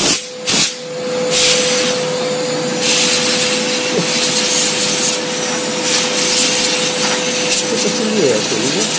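Kärcher construction vacuum cleaner running, its air rushing steadily over a constant motor whine as it sucks dust out of a computer case; the airflow drops out twice in quick succession at the start, then grows louder twice in steps.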